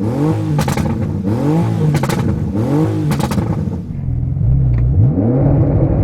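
PP-Performance Stage 2 tuned Porsche 991 Turbo S's twin-turbo flat-six blipped repeatedly, its revs rising and falling about once a second, with sharp exhaust crackles and pops as the revs drop off. After about four seconds the blips give way to a lower, steadier engine note that begins to climb again.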